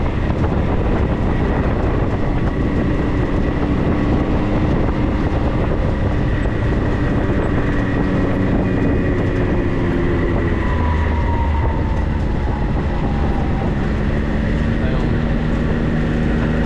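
4x4 vehicle driving, with a loud, steady rumble and rattle and the engine's drone drifting slowly up and down in pitch.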